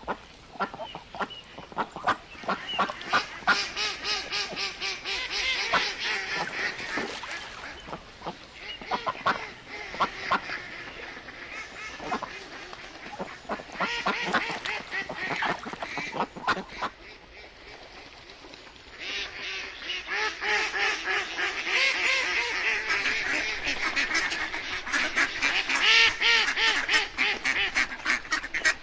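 A flock of ducks quacking in rapid, overlapping calls, in three busy stretches with a short lull about two-thirds of the way through.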